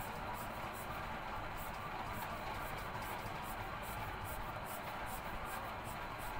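Coloured pencil scratching across paper in quick, repeated cross-hatching strokes, heard as a steady, fine hiss.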